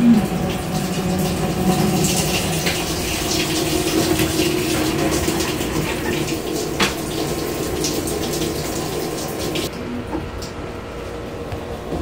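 Water spraying and pouring into the tub of a Maytag Commercial Technology top-load washer as it fills during its factory diagnostic cycle, a steady hiss over a low hum. The hiss thins at about ten seconds.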